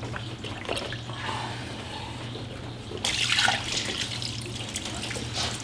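Engine coolant pouring and splattering out of a just-disconnected radiator hose connection, starting about three seconds in, after a few soft clicks of the hose being worked loose.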